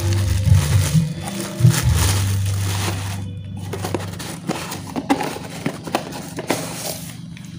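Background music with a steady bass line over the first half or so, with plastic wrapping crinkling and a cardboard box being handled as a spinning reel is unpacked. After the music drops, scattered short clicks and rustles of handling.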